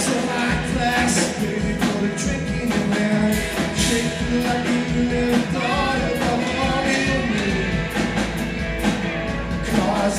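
Live rock band playing: strummed acoustic guitar together with electric guitar, electric bass and a drum kit, with a sung line over it.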